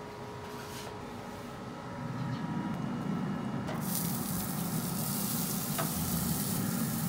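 Preheated Traeger pellet grill running, its fan and fire making a steady hum and hiss that grows louder about two seconds in as the lid is raised. From about four seconds in a brighter sizzling hiss joins as a raw, seasoned whole chicken is set on the hot grate.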